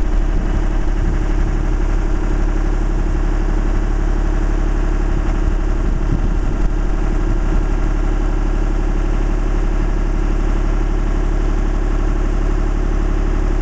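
Engine of a 45-foot JLG articulating boom lift running steadily at an even speed.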